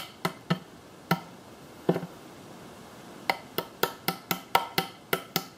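Light, sharp taps of metal pliers used as a hammer, driving a glued piece of wooden barbecue skewer down into an old screw hole to plug it. A few spaced taps come first, then after a short pause a quick run of about ten taps at roughly four a second.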